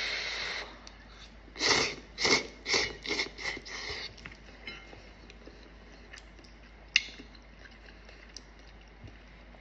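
Spicy ramen noodles being slurped: a short noisy slurp at the start, then a run of about seven quick slurps over some two seconds, followed by quieter chewing with one sharp click.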